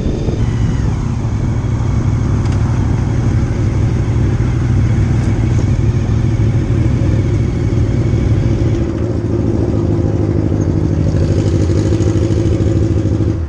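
Motorcycle engine running at a steady cruising speed while riding, with wind rushing over the microphone. The sound cuts off suddenly at the end.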